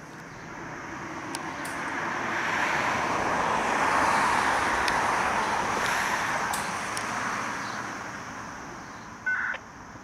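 A road vehicle passing close by: its tyre and engine noise swells to a peak about four seconds in and then fades away. A short, loud, high-pitched chirp comes near the end.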